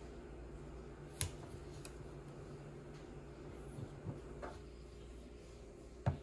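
A few sharp clicks and taps of plastic lotion bottles being handled at a table, the sharpest about a second in and another near the end, over a steady low hum.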